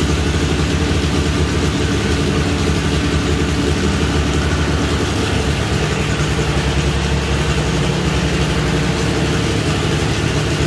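Turbocharged, methanol-fuelled 2.0-litre four-cylinder of a 1987 VW Jetta drag car running loud and steady, holding one pitch with no rev rise.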